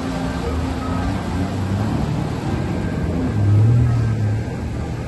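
Jet ski engine running as the watercraft passes close by, swelling louder for about a second a little past halfway.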